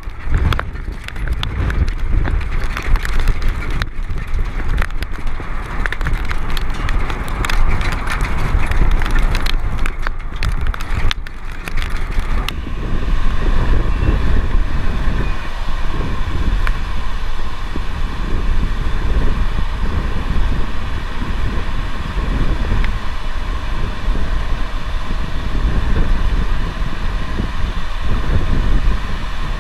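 Loud, rough wind noise on the microphone, heaviest in the low end, from a tornadic storm. About twelve seconds in it cuts abruptly to a steadier rumble with faint steady tones.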